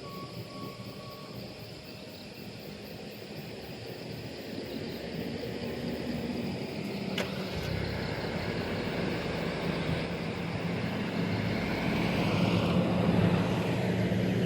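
Motor vehicle engine and road noise, growing steadily louder, with a single click about seven seconds in.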